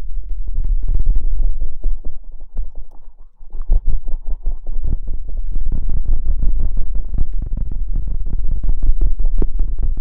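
Close-miked ASMR rustling and scratching: a fast, dense run of short rubbing strokes over a heavy low rumble, easing off briefly about three seconds in before picking up again.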